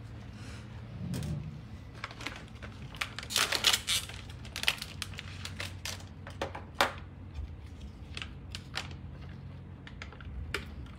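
Foil packet crinkling and tearing as it is opened: a run of irregular sharp crackles, loudest and densest about three to four seconds in.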